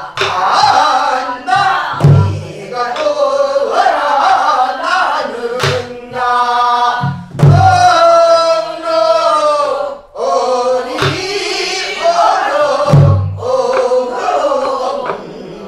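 Voices singing a Namdo folk song together in a drawn-out, bending style, to a buk barrel drum. Heavy drum strokes fall about every five and a half seconds and are the loudest sounds, with a few lighter strokes between them.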